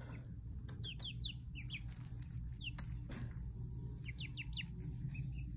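Young chickens, about five weeks old, peeping in short falling chirps, often in quick runs of three or four. Light clicks and rustles from the birds scratching in pine shavings, over a steady low hum.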